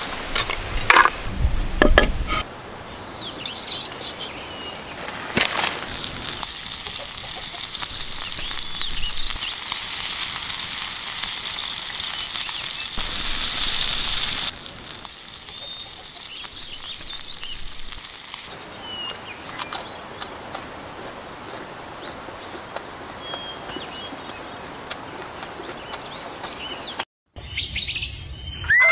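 Dry sticks snapping in the first couple of seconds, then food sizzling in hot oil for about a dozen seconds. Afterwards it gives way to quieter outdoor background with a few faint bird chirps.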